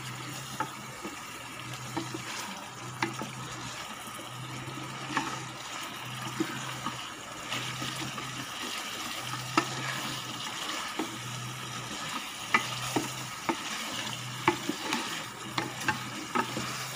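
Wooden spatula stirring beef in a thick sauce in a pot, scraping and knocking sharply against the pot now and then, over a steady sizzle of the meat frying.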